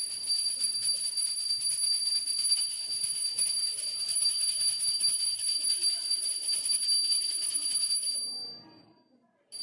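Hand bell rung without pause during home puja worship: a bright, high, jangling ring that fades away about a second before the end, then a short ring again.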